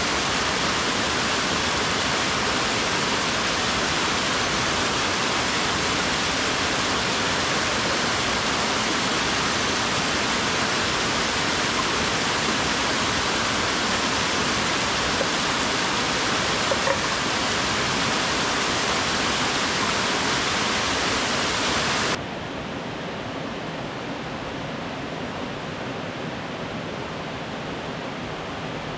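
Small waterfall's water rushing steadily over rocks, a loud even hiss. About three-quarters of the way through it turns suddenly quieter and duller.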